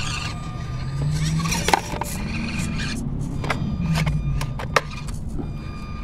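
An Axial SCX24 micro RC crawler's small electric motor and drivetrain whining, rising and falling in pitch with the throttle. It is broken by sharp clicks and knocks of the little truck against the course, the loudest a little under two seconds in and another toward the end.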